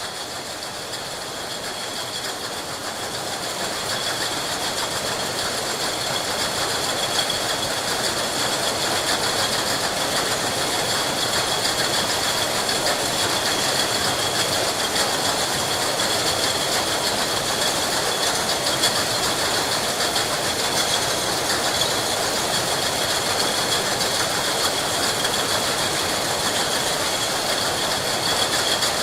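Glass bottles clinking and rattling together continuously amid running factory machinery, with a steady high ringing over a dense clatter. It grows louder over the first few seconds, then holds steady.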